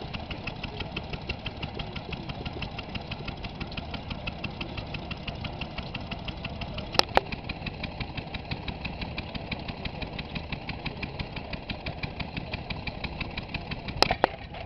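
Vintage stationary engines running with a steady, rapid mechanical ticking rhythm of several beats a second. A pair of sharp loud cracks cuts through about halfway and again near the end.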